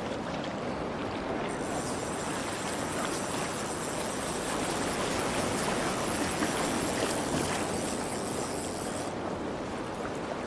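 Steady wash of ocean surf breaking and running up a shallow beach.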